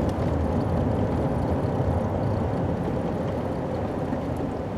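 Steady road and engine noise inside the cab of a two-wheel-drive Toyota Tacoma pickup driving straight, a low rumble that gets a little quieter toward the end.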